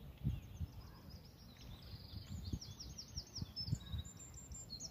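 A small songbird singing a quick phrase of high, repeated chirping notes, starting about a second and a half in, over a faint, uneven low rumble.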